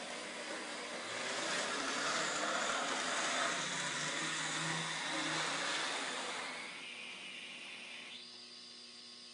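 N scale CSX diesel locomotive model running along the track, its small motor and wheels making a steady whirring noise that swells about a second in and fades away after about six seconds. A low steady hum is left near the end.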